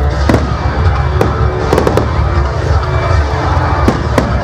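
Fireworks going off in a display: sharp bangs at irregular intervals, three in quick succession about two seconds in, over a steady low rumble.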